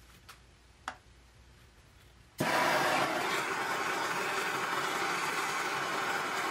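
Two faint clicks. Then, about two and a half seconds in, a gas torch flame comes on suddenly and keeps burning with a steady, loud hiss.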